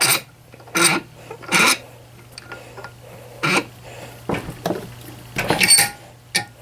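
Hand tools and metal parts being handled: about six short clanks and scrapes at uneven intervals, over a faint steady low hum.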